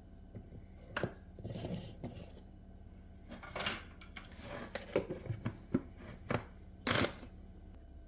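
Irregular small clicks, knocks and brief rustles of objects being handled in a small room, with a sharper clatter near the end.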